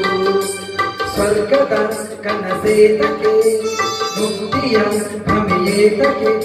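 A man singing a Kannada song into a microphone over a loud recorded backing track, with percussion keeping a steady beat of about two hits a second under the melody.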